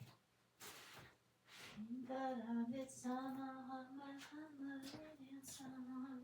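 A woman singing a tune to herself without words, in a few long held notes that start about two seconds in. It comes after some soft rustling of fabric being handled.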